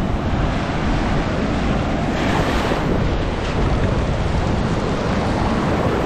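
Ocean surf breaking and washing around the shallows, with wind buffeting the microphone. One wash swells louder about two seconds in.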